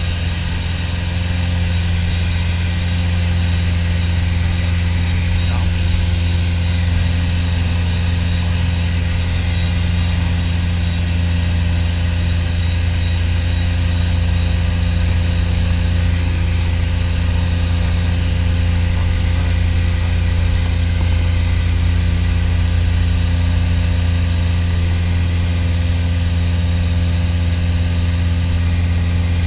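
Piper PA-44 Seminole's twin piston engines and propellers running steadily in flight, heard inside the cockpit as a low, even drone.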